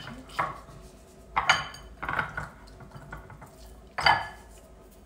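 Glass mixing bowl knocked and clinking a few times, with a brief glassy ring, as raw pork chops are lifted and turned in it by hand while being salted.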